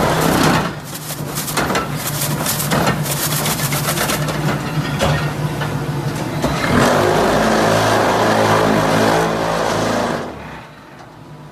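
Fully automatic hydraulic paving block press running, with a steady motor and pump hum. Rapid rattling clatter comes through in the first few seconds, and the machine gets louder and denser from about seven seconds in. The level drops off near the end.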